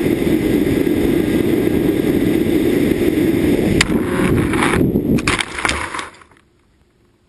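Electric motor and propeller of an EasyStar foam RC plane running steadily, with wind rushing past the onboard camera. About four seconds in comes a sharp crack, then a run of knocks and scrapes as the plane hits the ground, and the sound fades out.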